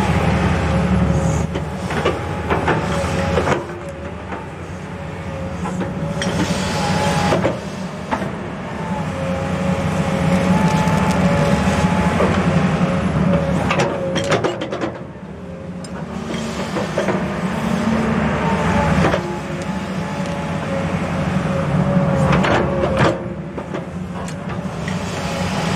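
Komatsu tracked excavator working a ditch: the diesel engine drones under load with a wavering whine over it, rising and falling as the tilt bucket drags through wet soil and lifts out a load. A few sharp knocks from the bucket and boom come through along the way.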